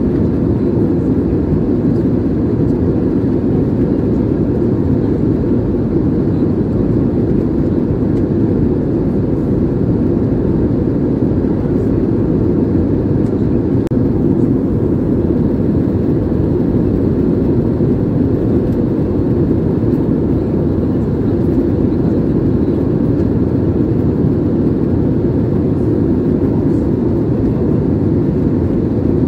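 Airliner cabin noise in flight: the steady low rumble of the jet engines and airflow heard through the fuselage, unchanging throughout.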